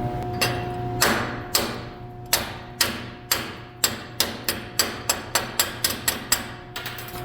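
Steel chipping hammer striking a stick weld about fifteen times, chipping the slag off the bead. The strikes come faster toward the end.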